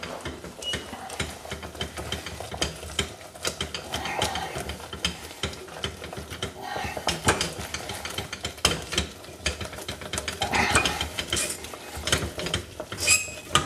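A wooden spatula stirs almonds and hazelnuts through hot sugar syrup in a stainless steel saucepan, giving a rapid, irregular clatter and scrape of nuts against the pan. The syrup has been cooked to soft-ball stage and is being worked off the heat so the sugar crystallizes into a sandy coating.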